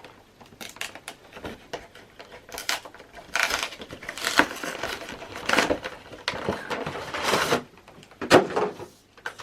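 Packaging of a Pokémon card collection box being worked open by hand: rustling and tearing in several bursts of up to about a second, with short scrapes and taps between.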